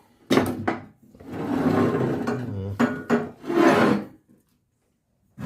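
Rough metal scraping and rasping from hand-tool work on a log splitter's bent support legs. There are several strokes, the longest about a second and a half, and a single knock near the end.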